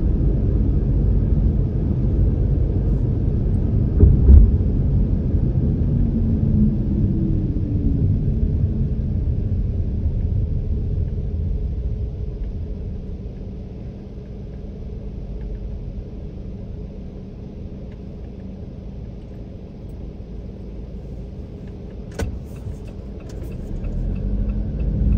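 Road and engine rumble heard inside a car's cabin as it drives, growing quieter about halfway through. There is one loud thump about four seconds in and a few clicks near the end.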